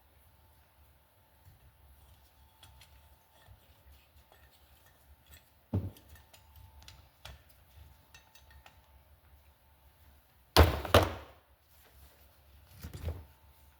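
Metal hand tools and valve parts clinking and knocking on a workbench while valve springs are removed from a motorcycle cylinder head. There is a single knock about six seconds in, and a louder clatter of metal on metal about ten and a half seconds in.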